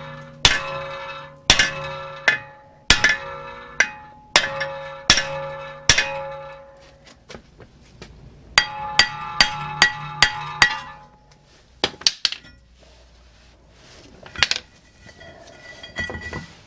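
Hammer blows on a rusted-on VW Tiguan front brake disc, each strike setting the cast-iron disc ringing with a lasting bell-like tone. The blows come about one a second at first, then in a quicker run of about three a second, then a few lighter clinks and knocks as the disc, rusted to the hub, comes free.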